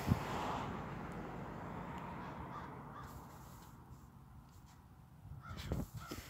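Crows cawing a few times, growing fainter. Near the end, a dog snorting a couple of times with its nose pushed into the snow.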